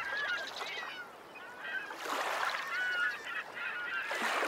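A flock of birds calling over and over in short, wavering cries, with a rush of noise that swells and fades about every two seconds.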